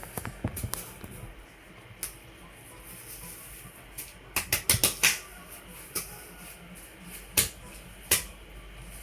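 Laptop keyboard keys being pressed: a scatter of clicks near the start, a quick run of about five or six sharp clicks in the middle, then two single presses near the end.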